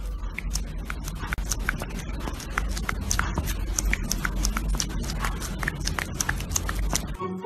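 Close-up sounds from a cat lying on its back: many irregular soft clicks and rubbing over a steady low rumble.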